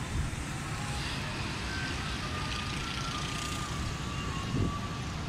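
Steady low rumble of outdoor city background noise, with a few faint, short, high tones held briefly one after another through the middle.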